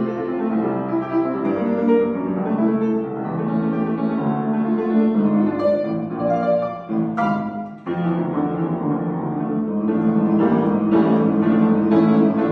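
Upright piano played solo: a continuous, busy flow of notes and chords, with a brief drop in loudness just before eight seconds in, then a sharp, loud chord as the playing picks up again.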